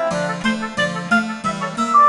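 Background music: a light instrumental tune with a plucked-string accompaniment of even, bouncy strokes and a stepping melody line above it.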